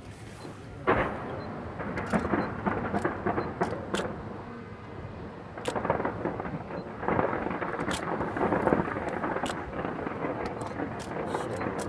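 Fireworks going off in rapid succession: rumbling booms and dense crackle, with a sharp blast about a second in and further swells of explosions after.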